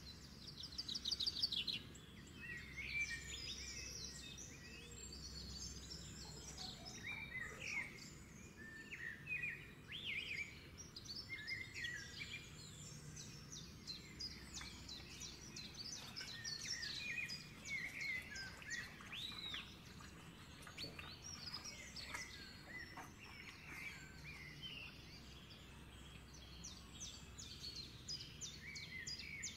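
Birds chirping and calling, with many short, varied calls one after another over a faint low hum.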